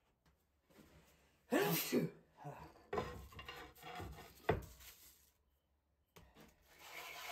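Bench handling sounds: a short cough-like vocal noise, a few knocks of a sandpaper-covered plate being set on a wooden workbench, then steady rubbing near the end as a wooden knife handle is hand-sanded flat on the sandpaper.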